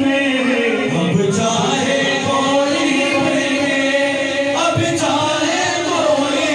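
A group of men singing a devotional Urdu song together into microphones, several voices in unison.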